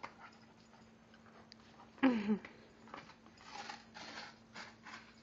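A small Cairn terrier–Shih Tzu mix dog tugging at and chewing a cardboard Instant Breakfast box, the torn box giving several short crinkling rustles in the second half. About two seconds in there is one brief loud voiced sound falling in pitch.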